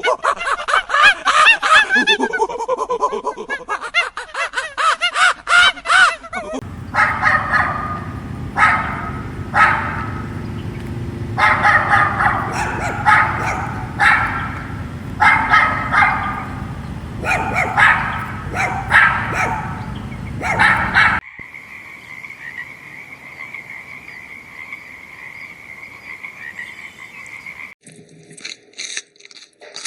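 A run of different animal sound-effect clips played one after another. First come dense, rapid calls. Then, over a low rumble, separate calls come about once a second. Near the end a steady high-pitched trill sounds, followed by a few crackling clicks.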